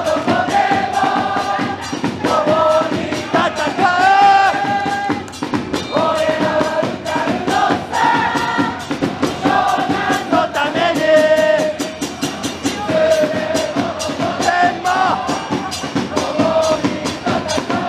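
A crowd of football supporters singing a chant together in unison, with a steady beat underneath.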